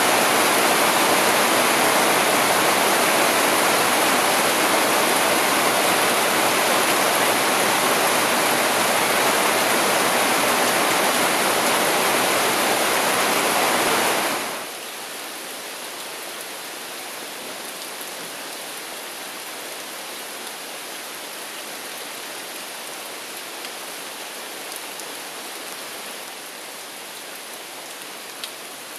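Heavy downpour pelting on forest leaves, a steady dense hiss of rain; about halfway through it drops abruptly to a quieter, steady rain.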